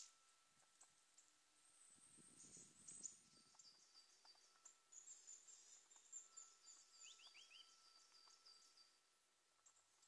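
Faint, high, thin bird calls from small songbirds in quick repeated series, starting about two seconds in and stopping near the end, with a few lower notes in the middle. A brief low rumble comes about two seconds in.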